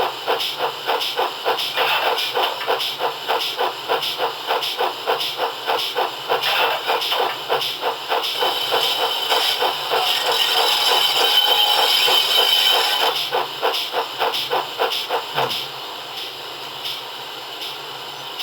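Sound decoder in a 0 gauge GWR 45xx 2-6-2T tank engine model, playing steam locomotive exhaust chuffs in a steady beat over hissing steam through the model's speaker. The hiss swells for a few seconds midway; about fifteen seconds in the chuffs stop, leaving a quieter steady hiss.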